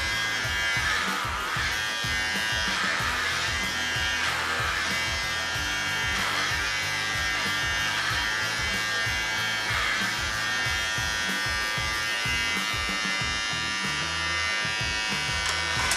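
Corded electric dog clippers buzzing steadily as they cut through a West Highland White Terrier's coat, swelling and easing every second or two as the blade moves through the fur. Music plays in the background.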